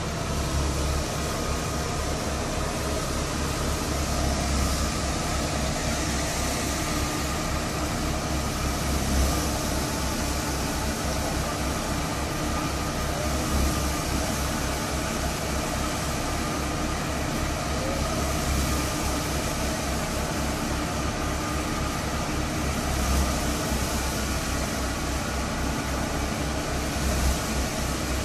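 A tractor-driven thresher running steadily while threshing mustard stalks, powered by a Fiat 480 tractor's diesel engine running under load.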